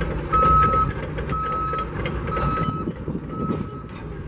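A work machine's back-up alarm beeping steadily, about one beep a second, over the low running of diesel machinery; the beeps grow a little fainter toward the end.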